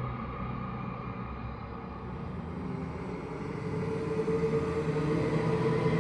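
Eerie ghost-moan sound effect: a low rumbling ambient drone, with a held moaning tone swelling in and growing louder about four seconds in.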